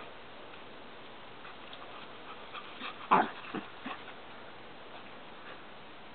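A small dog barks once, short and loud, about halfway through, followed within a second by two smaller yips.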